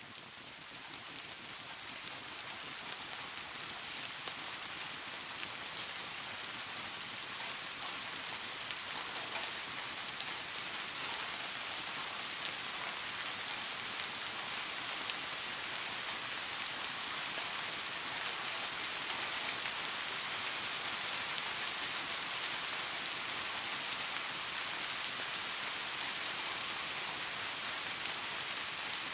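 Steady rain sound, an even hiss without tones, slowly growing louder over the first several seconds and then holding level.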